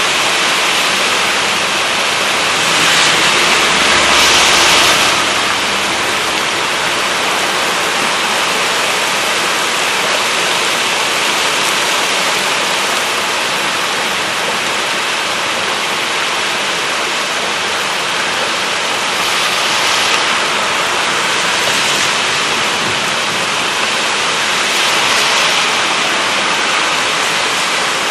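Heavy rain pouring in a storm with gusty wind: a steady loud rush that swells louder about three to five seconds in and twice more in the second half.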